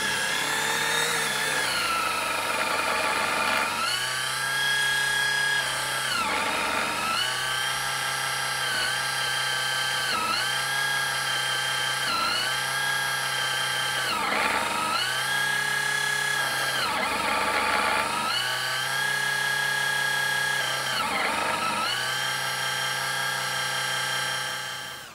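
Small battery-powered oil transfer pump running while it pumps thick EP90 gear oil through a hose into a transfer box. Its motor whine starts suddenly, sags in pitch and recovers about every two seconds, and cuts off near the end.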